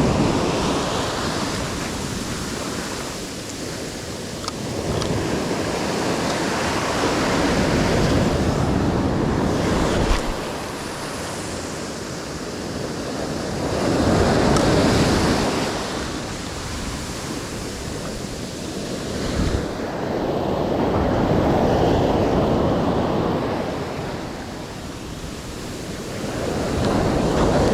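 Ocean surf washing in and out in slow surges about every six to seven seconds, with wind buffeting the microphone. There is a single short knock about ten seconds in.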